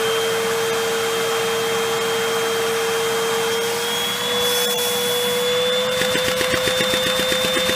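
Vacuum cleaner running steadily with a high whine, its hose drawing air through a Lego vacuum engine with a 4x4 piston and four valves. About six seconds in, a fast, even pulsing of roughly eight beats a second sets in as the suction starts the engine turning.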